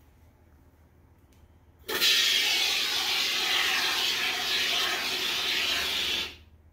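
Aerosol can of Loctite Tite Foam insulating foam sealant spraying foam into a mask: a steady hiss that starts about two seconds in and cuts off after about four seconds.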